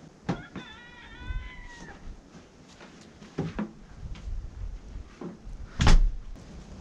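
Cabin door latch clicks and a long squeak follows, as of the door's hinges as it opens. A few knocks and a loud thud near the end follow.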